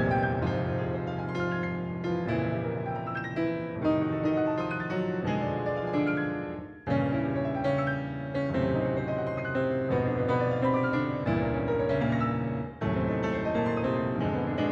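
Background piano music, a steady run of held notes with a brief drop in level about seven seconds in and again near the end.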